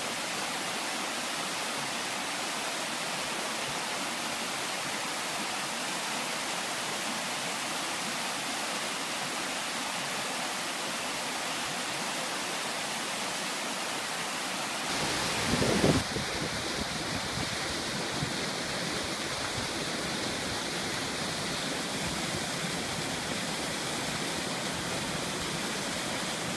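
Stream water cascading over rocks, a steady rush. About halfway through there is a brief low rumble, and then the sound changes to a waterfall plunging into a rock pool, with a deeper rush.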